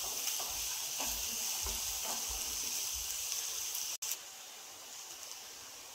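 Sliced small onions and green chillies sizzling in oil in a nonstick frying pan, stirred with a wooden spatula in strokes about every half second. The sound cuts out sharply about four seconds in, and the sizzle goes on more quietly after it.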